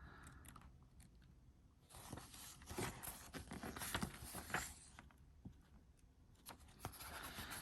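Faint rustling and crinkling of paper as a folded player's guide is handled and opened out, in two spells with small clicks and taps.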